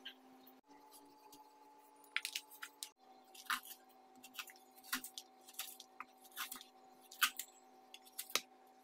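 A knife blade prying chunks of fresh coconut meat away from the shell, each piece breaking off with a short crisp crunch, roughly one a second from about two seconds in, over a faint steady hum.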